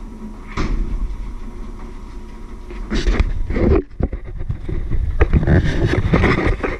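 Handling noise from the camera being picked up and carried: rubbing and bumping on its microphone in several bursts, the longest in the last couple of seconds, over a steady low rumble.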